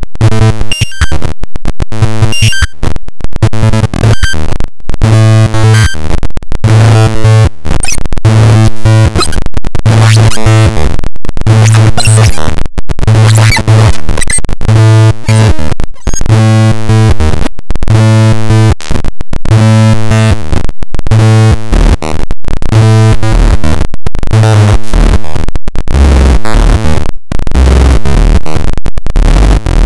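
Pure Data software synthesizer playing a sawtooth-wave step-sequencer pattern: harsh buzzing notes repeat in a steady pulse, with noisy crackle between them. Near the end the notes drop lower in pitch.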